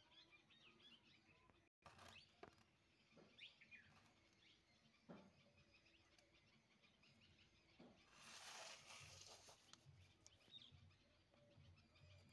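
Near silence: faint room tone with scattered faint high chirps and clicks, and a brief rustle of the paper sheets about eight seconds in.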